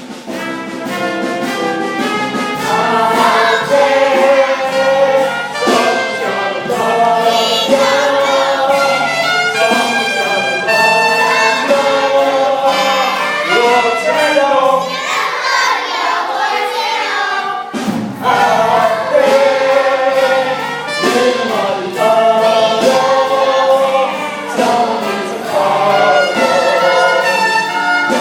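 Brass-led show-tune band playing an instrumental break between verses of a stage-musical number, with a brief cut-off about two-thirds of the way through before the music picks up again.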